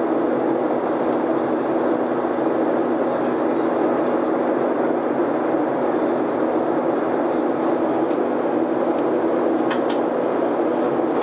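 Steady airliner cabin noise in flight: the jet engines and rushing airflow, with a constant low hum running under the rush.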